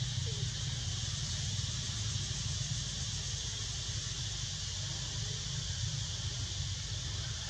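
Steady outdoor background noise: an even high hiss over a constant low rumble, with no distinct sounds standing out.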